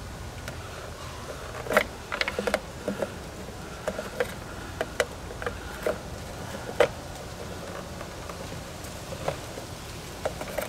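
Scattered light plastic clicks and taps from a Chevy Traverse tail light assembly and its bulb socket and wiring being handled, a small run of them about two seconds in, over a faint steady background.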